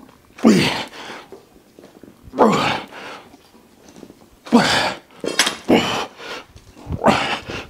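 A man's forceful exhales under exertion during barbell reps: five short, breathy grunts about one every one and a half to two seconds, each dropping in pitch.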